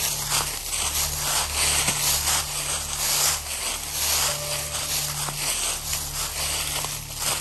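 A person and a dog walking through deep dry fallen leaves: steady crunching and rustling, step after step, over a low steady hum.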